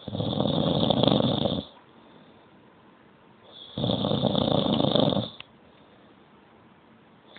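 Snoring: two long snores about three and a half seconds apart, each lasting about a second and a half, with a third beginning right at the end.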